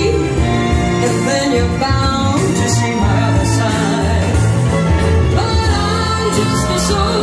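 A song with singing over instruments and a bass line, played back on a hi-fi system.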